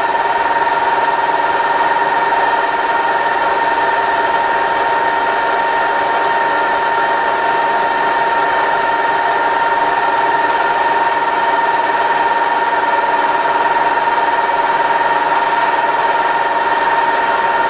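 Freshly rebuilt Bridgeport milling machine running steadily, its spindle turning with the quill power feed engaged at the slowest rate, lowering the quill. The machine gives a steady high whine over a constant mechanical hum.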